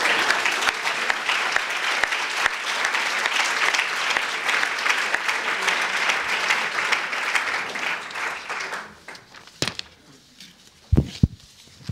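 Audience applauding steadily for about nine seconds, then dying away. A few sharp knocks follow near the end.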